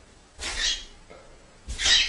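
A pet bird giving two short, harsh squawks, one about half a second in and a louder one near the end.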